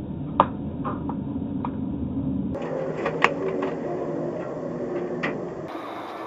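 Road noise of a car driving on a highway, heard from inside as a dashcam records it, with a handful of sharp clicks scattered through it, the loudest about half a second in. The low rumble thins out about two and a half seconds in.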